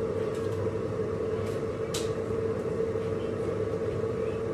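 Steady low hum of a running appliance or motor, with a couple of light clicks about one and a half and two seconds in.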